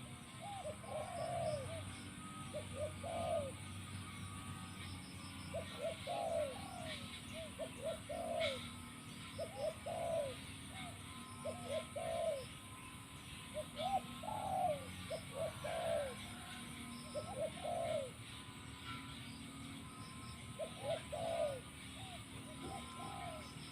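Spotted dove cooing: short phrases of a few coos each, repeated every couple of seconds.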